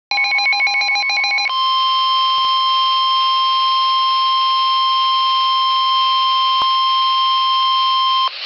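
Emergency Alert System alert tones announcing a severe thunderstorm warning. About a second and a half of rapidly warbling digital data tones, then a single steady, high alarm tone that holds for about seven seconds and cuts off abruptly near the end.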